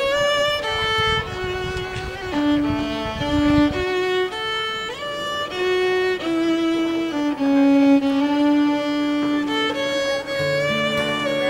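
Background music: a violin plays a slow melody of long held notes, stepping up and down. A low rumble sits under the first few seconds, and lower accompanying notes come in near the end.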